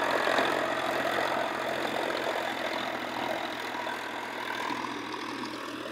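Solis Yanmar 5015 tractor's diesel engine running under load, pulling a 6 ft, 42-blade rotavator that churns through dry soil. The sound fades steadily as the tractor moves away.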